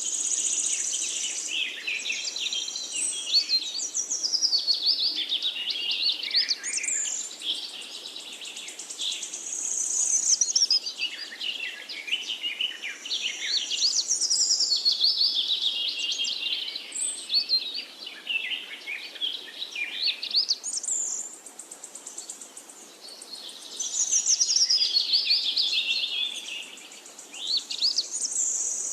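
Birds chirping and singing: quick high chirps and twittering phrases that sweep up and down, coming in waves a few seconds long with short lulls between.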